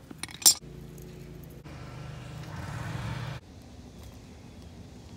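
A sharp knock, then a low, steady engine hum, like a motor vehicle running close by. The hum grows louder and then cuts off suddenly about three and a half seconds in.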